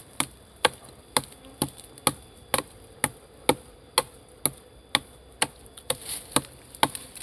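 Steady chopping into the wood of an Albizia tree trunk, sharp even strikes at about two a second, widening a narrow hole to reach a honeybee nest inside.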